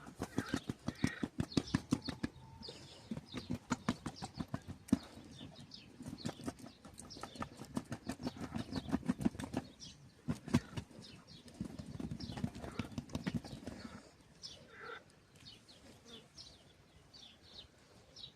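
Quick rhythmic thumping in runs of a few seconds each, several beats a second, dying away about fourteen seconds in; faint chirps follow.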